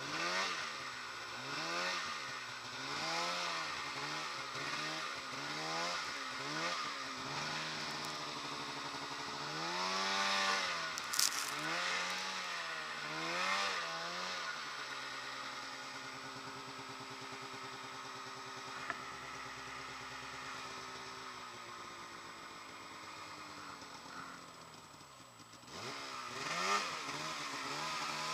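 Polaris mountain snowmobile's two-stroke engine revving up and down again and again, about once a second, as the rider works it through deep powder. About halfway through it settles to a steadier, lower speed for several seconds, then revs up and down again near the end.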